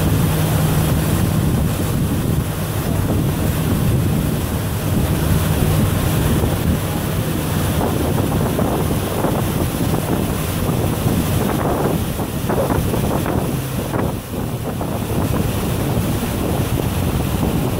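Wind buffeting the microphone and water rushing and splashing along the side of a pontoon boat under way, over the low steady hum of its motor, which weakens about two-thirds of the way through.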